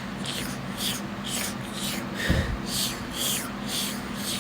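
A cartoon dog sniffing over and over, short hissy sniffs about two a second, with one soft thump about two seconds in.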